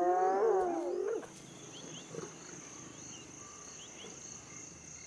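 A spotted hyena gives a wavering, high-pitched yelp lasting about a second. It stops abruptly, leaving a steady background of crickets and insects with short repeated chirps.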